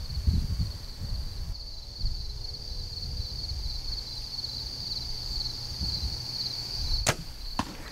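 Steady pulsing chirr of crickets and other insects. Near the end comes one sharp snap of a compound bow being shot, and a second sharp crack about half a second later.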